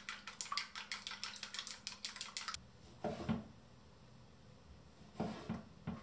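Chopsticks whisking in a stainless steel bowl, a fast clatter of about eight clicks a second that stops about two and a half seconds in. Then a kitchen knife cutting a tomato on a wooden cutting board, two short runs of dull chopping knocks.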